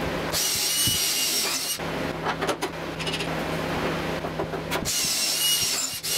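Makita 18V LXT cordless drill boring holes through plywood into MDF: the motor whines in two runs, the first about a second and a half long just after the start, the second near the end. Between the runs come clicks and knocks.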